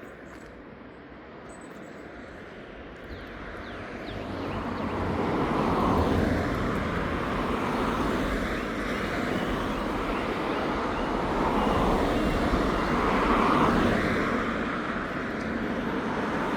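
Road traffic passing close by: cars going past one after another, the rush of tyres and engines building about four seconds in and swelling and easing as each one passes.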